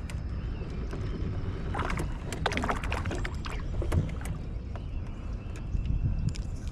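Small boat on the water: a low steady rumble with a cluster of light knocks and clicks about two to three seconds in, and another knock about four seconds in.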